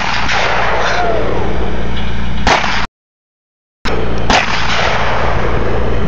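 Sharp, loud, gunshot-like bangs, one at the start, one about two and a half seconds in and one just past four seconds, each trailing off in a ringing smear, over the steady running of a compact tractor's engine. The sound cuts out completely for about a second after the second bang.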